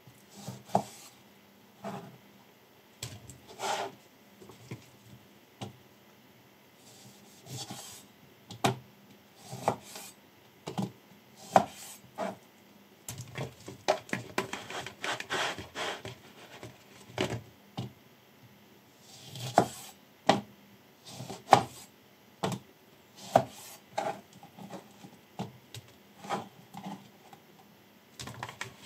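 A Damascus-steel chef's knife cutting lemons on a plastic cutting board: irregular knocks of the blade against the board. About halfway through comes a few seconds of rustling and scraping as cut lemon pieces are handled in a bowl.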